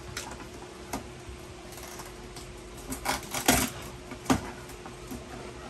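A wrapped gift box being opened by hand: paper and packaging rustling and tearing, with scattered clicks and knocks from the box. The loudest rustling bursts come about three seconds in, and a sharp one follows about a second later.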